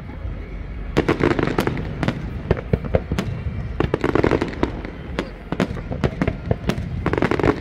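Aerial fireworks bursting: a rapid run of sharp bangs and crackles, with louder clusters of bursts about a second in, around four seconds and again near the end.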